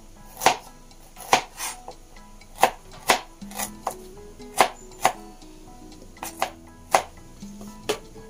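Kitchen knife chopping garlic cloves on a plastic cutting board: about a dozen sharp knocks at an uneven pace, with soft background music.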